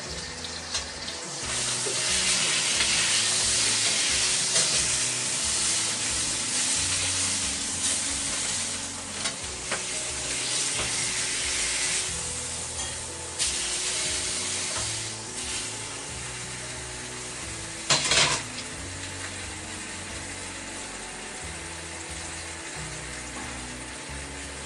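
Pork steaks sizzling in a very hot wok, loud through the first half and easing off toward the end, with one brief clatter about 18 seconds in.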